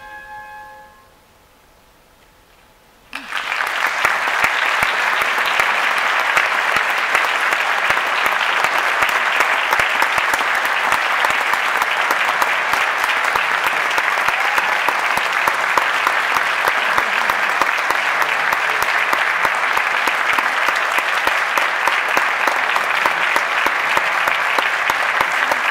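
The last held note of an oboe and English horn duet fades out. After a brief hush, an audience breaks into applause about three seconds in and keeps clapping steadily.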